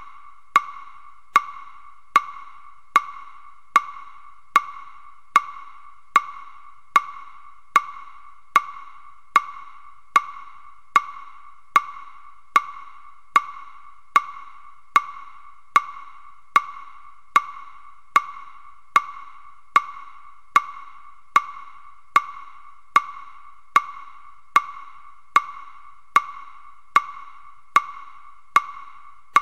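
Wooden fish (muyu) struck in a slow, perfectly even beat, a little faster than one stroke a second. Each stroke is a hollow knock with a short ringing tone. It is the pacing beat for sutra recitation, one character chanted per stroke.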